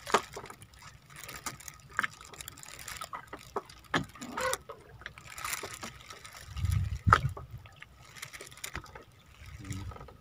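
Water sloshing and trickling against a small outrigger fishing boat, with scattered knocks and clicks from gear being handled.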